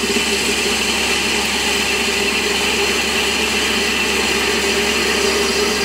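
Warco metal lathe running with the cutting tool taking a facing cut across a metal pulley's shoulder: a steady cutting hiss over the hum of the machine.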